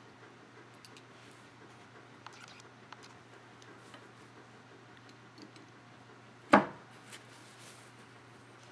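Small, faint clicks of a metal knitting tool and yarn working over the metal pegs of a wooden knitting loom, with one sharp knock about six and a half seconds in.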